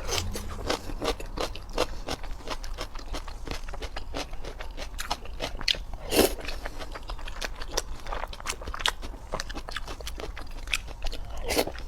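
Crisp cucumber being bitten and chewed close to the microphone: a steady run of irregular wet crunches, with one louder bite about six seconds in.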